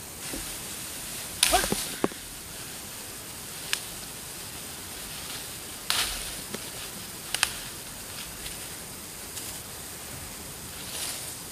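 A few sharp knocks and clacks, spaced irregularly, over a steady background hiss. No motor is running.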